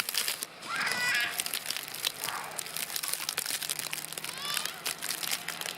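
Irregular crunching and crackling of snow. Two short, high-pitched wavering squeals cut through it, one about a second in and one about four and a half seconds in.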